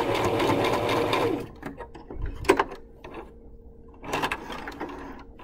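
Domestic electric sewing machine running steadily as it sews a top stitch, its motor winding down and stopping about a second in. A few sharp clicks and handling noises follow as the fabric is drawn out from under the presser foot.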